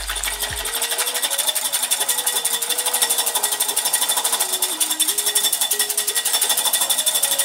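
Wire whisk beating egg whites by hand in a glass bowl, its wires clicking rapidly and evenly against the glass as the whites are whipped toward peaks.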